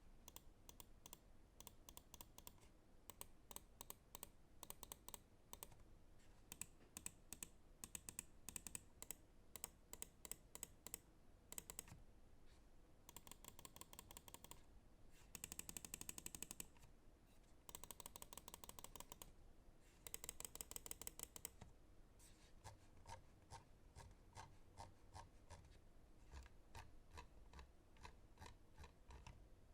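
Lamzu Atlantis Mini gaming mouse buttons clicking: single clicks at an uneven pace, with several runs of rapid clicking around the middle.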